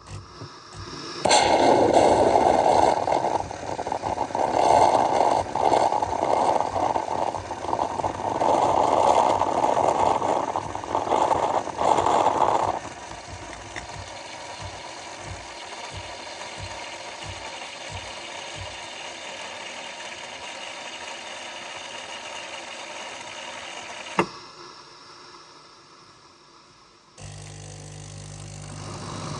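Coffee machine working through its cycle: a loud, rough grinding runs for about eleven seconds, then gives way to a steadier, quieter hum. A sharp click comes about 24 seconds in, the sound fades, and near the end another low, steady motor or pump starts up.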